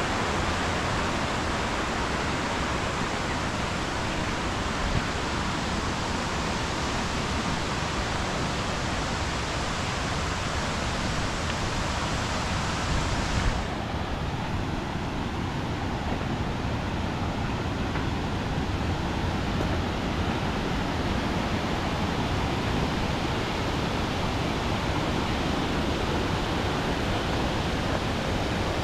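Steady rushing of river water flowing over small cascades beside the trail; about halfway through the high hiss drops away suddenly and it turns duller.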